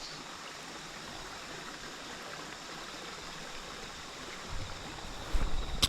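Steady rushing of running water, with a low rumble coming in over the last second or so.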